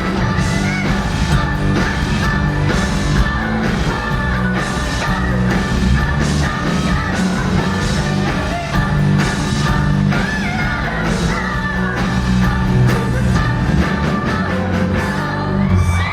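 Live rock band playing loudly with a steady beat and a singer's vocal line, cutting off suddenly at the very end as the song finishes.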